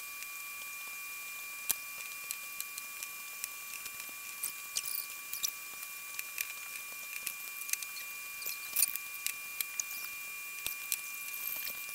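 Scattered light clicks and taps of wooden parts and a bar clamp being handled on a workbench, irregular and sharp, over a steady high-pitched electrical whine.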